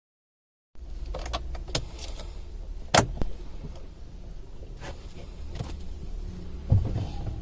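A scattering of sharp clicks and knocks inside a car over a low steady rumble. The loudest click comes about three seconds in and a heavier thump near the end.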